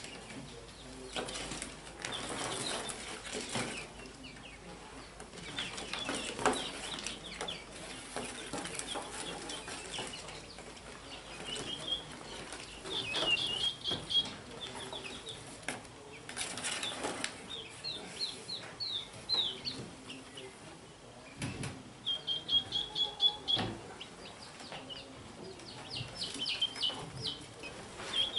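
Young poultry chicks peeping in quick runs of high chirps, with several bursts of wing flapping and rustling as the birds are handled and put into the pen.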